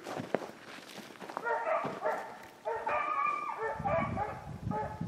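Beagles baying while running a rabbit: a string of short, pitched bawls starting about a second and a half in, several voices overlapping. Before them, footsteps in snow.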